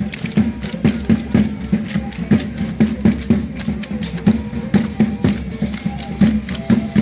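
Matachines dance music: a steady low drum beat overlaid with sharp rhythmic clicks, about three to four a second, and faint held melody notes.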